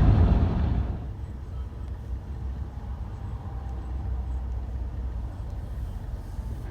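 Heavy truck passing close by: loud engine and road rumble that drops away about a second in, leaving a quieter steady low rumble of traffic.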